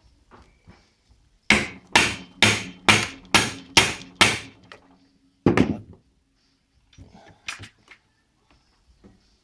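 Rubber mallet blows on a bolt driven against the crankshaft end of a Yamaha XS1100 engine, striking to shock the alternator rotor off its tapered seat. There are seven quick blows about two a second, then a single blow about a second later and a lighter one near the end, with a low metallic ring carrying after the strikes.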